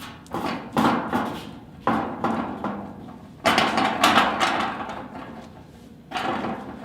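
Handling noise from a camera-mounted shotgun mic while the camera is shaken by hand: irregular rustling bursts and knocks, the loudest about a second in and again about three and a half to four seconds in.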